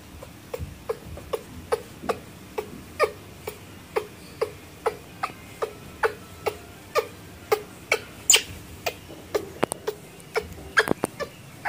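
Baby long-tailed macaque crying with short, high calls over and over, about two or three a second, with one louder, shriller squeal about eight seconds in. These are a lone infant's calls for its carer.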